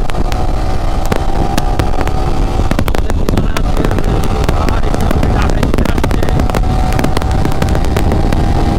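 Yamaha sport motorcycle engine running at a steady cruising speed, heard from the bike's own onboard camera, with many sharp crackles and clicks over the engine note.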